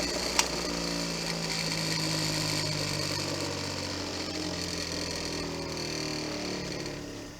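A motor running steadily, slowing down near the end, with a single sharp click about half a second in.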